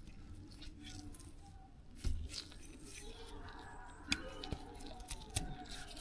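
Quiet handling noises from working on a dirt-caked brushcutter: light clicks and scrapes, with a soft knock about two seconds in.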